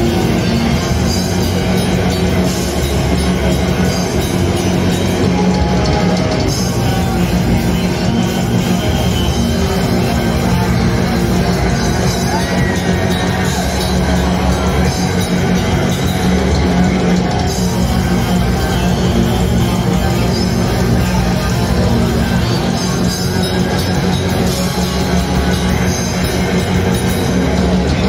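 A blackened thrash metal band playing live at a steady, loud level, with distorted electric guitars and drums, heard from among the crowd.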